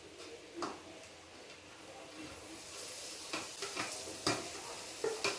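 Blended chili, onion, garlic and lemongrass paste frying in hot oil in a wok, the sizzle growing louder from about halfway through, with a spatula knocking and scraping against the wok several times.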